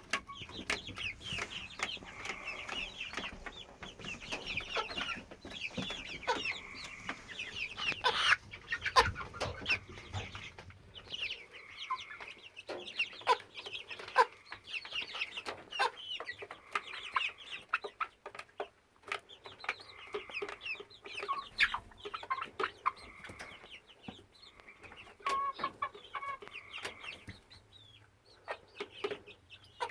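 A young pullet, about 10 to 12 weeks old, calling over and over in short, rapid notes with no real break: the constant sound that has not stopped for days, while she otherwise acts normally.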